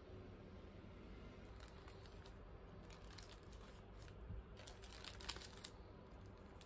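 Faint crinkling and crackling of a paper burger wrapper being handled, a cluster of light crackles in the middle and second half, over a quiet steady room hum.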